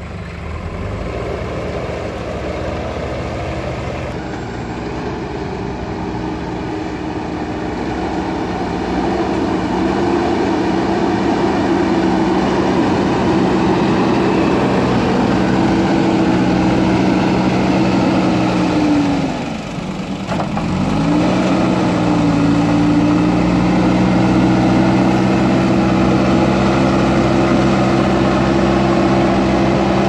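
JCB backhoe loader's diesel engine running steadily while the front bucket pushes and levels mud. The engine speeds up about a third of the way in, then drops sharply for a moment about two-thirds of the way in and comes straight back up.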